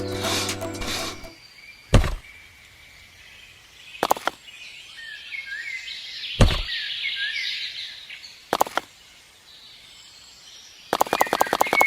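Music ends about a second in, then four sharp knocks come about two seconds apart, with bird chirps between them. Near the end a fast, even clicking begins.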